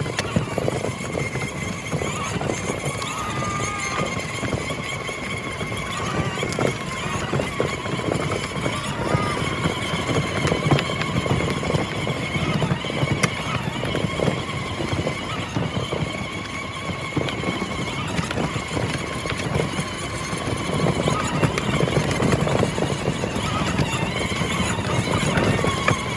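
24V ride-on toy Toyota Hilux driving over rough ground: a high, wavering whine from its electric drive motors over a dense rattle and crunch of the plastic wheels and body.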